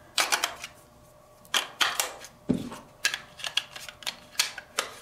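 Plastic clicks and taps from a toy-grade RC transmitter as two AA batteries are pushed into its battery compartment and the plastic cover is snapped back on: a string of sharp, irregularly spaced clicks.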